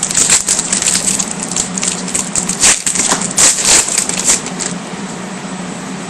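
Crinkling and rustling of foil trading-card pack wrappers and cards being handled, a quick run of crackly scrapes that eases off near the end.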